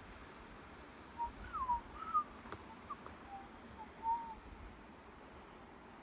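A string of short whistled notes gliding up and down, starting about a second in and ending a little past four seconds.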